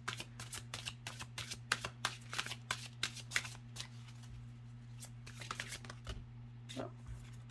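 Glossy oracle cards being shuffled by hand: a quick run of soft card flicks for about four seconds, slowing to a few scattered flicks and stopping near the end.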